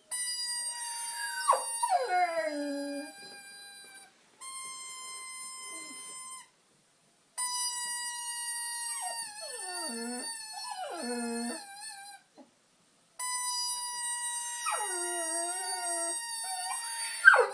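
Pit bull howling along with a steady, reedy high tone: the tone sounds in four long stretches of two to four seconds, and the dog's howls slide downward and waver over it, several times.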